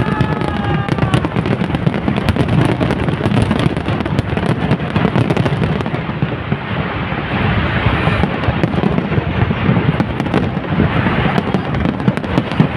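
Aerial fireworks display going off in a dense, continuous barrage of bangs and crackling.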